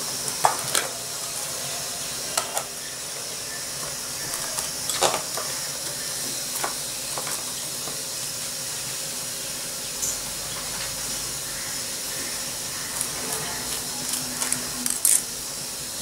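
Plastic cling wrap being pulled from its roll and pressed around a glass bowl: scattered crinkles and clicks, loudest about five seconds in and near the end, over a steady background hiss.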